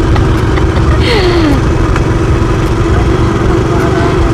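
Motorcycle engine running steadily while riding, with heavy wind rumble on the phone's microphone.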